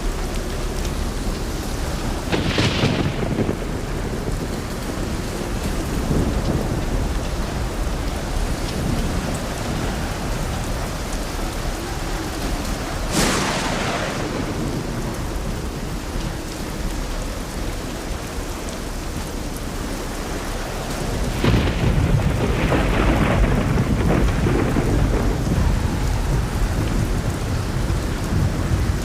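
Heavy, steady rain with thunder: a sharp crack a couple of seconds in, another louder crack about halfway, and a longer rolling rumble late on.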